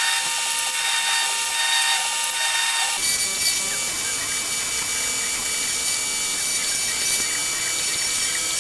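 Power tool running steadily, with a mechanical clicking, high-pitched whir; the sound changes character about three seconds in.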